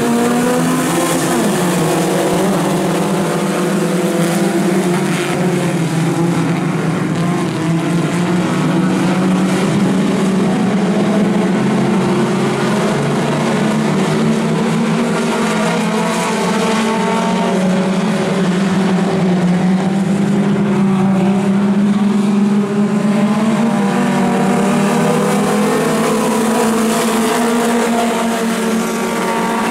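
A field of mini stock race cars racing together, their four-cylinder engines making a loud, steady mixed drone. Several engine notes overlap and drift up and down in pitch as the cars accelerate and pass.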